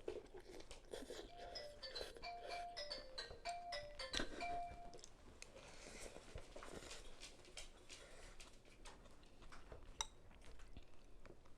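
A phone ringtone plays a short tune of clear, stepping notes, faint, from about one to five seconds in, with small clicks around it.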